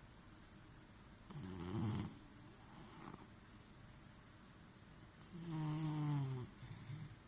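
Snoring in slow, regular cycles: two long snores, about a second and a half in and about five seconds in, with softer breaths and a short snort-like sound near the end.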